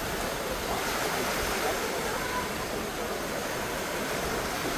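Sea waves washing onto the shore, a steady rush of surf.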